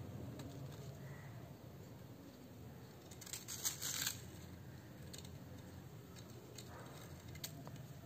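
Faint rustling and small clicks of hands twisting a thin wire around a sapling's stem, with leaves brushing. A short burst of crackling about three seconds in is the loudest part.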